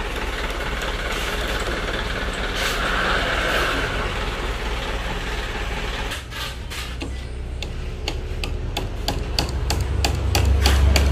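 A vehicle engine running steadily at idle, and from about six seconds in a string of sharp, irregular wooden knocks and clicks as a wooden crate is slid and shifted out of a car's boot. The engine rumble grows louder near the end.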